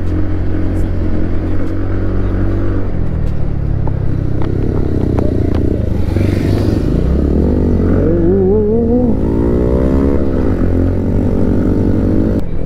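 Scooter and motorcycle engines running along a rough road, with clatter and knocks as they ride over potholes. In the second half, engines rise and fall in pitch as they are revved up and down.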